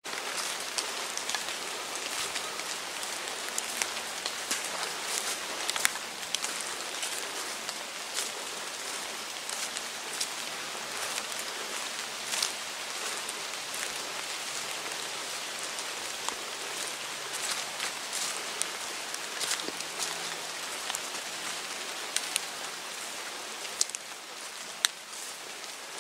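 Rain falling on forest foliage and leaf litter: a steady hiss with scattered, irregular sharp drop hits.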